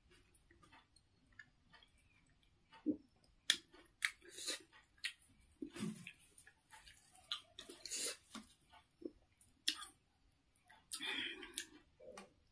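A person eating hand-made wheat noodle soup close to the microphone: chewing and mouth sounds with soft clicks of a metal spoon in the bowl, in short, irregular bursts.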